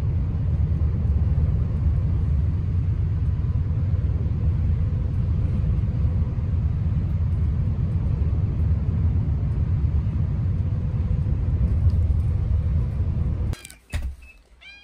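Steady low rumble of a vehicle in motion, heard from inside the cabin. Near the end it cuts off and a cat starts to meow.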